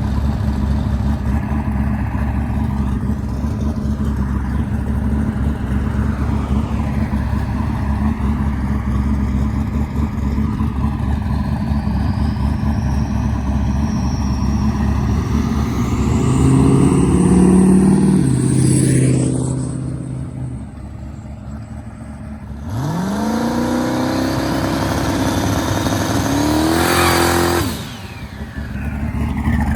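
Car engine running steadily with road drone, rising in revs about halfway through and then easing off. Near the end it accelerates hard, the revs climbing for about five seconds before cutting off suddenly.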